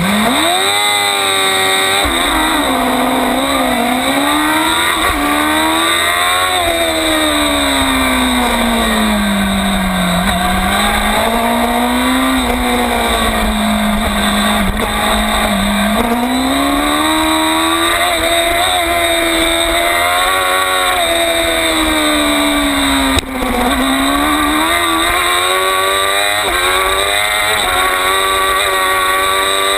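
Onboard sound of a Yamaha R6 600cc inline-four sport bike launching from a race start: the engine revs climb quickly off the line, then rise and fall in pitch through gear changes and corners, with wind noise on the microphone. A single sharp knock about three quarters of the way through.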